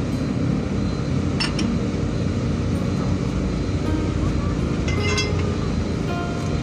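A steel pry bar clinks against a truck tyre's steel rim twice, about a second and a half in and again about five seconds in, the second strike ringing briefly. Background music plays throughout.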